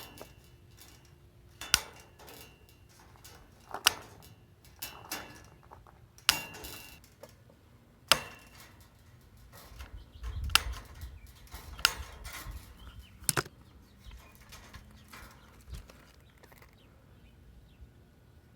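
Wire snippers cutting 1/4-inch wire mesh: a string of sharp metal snips at irregular intervals a second or two apart.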